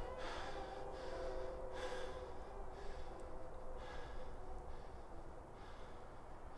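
A man breathing hard in short, gasping breaths, about one a second, growing fainter toward the end.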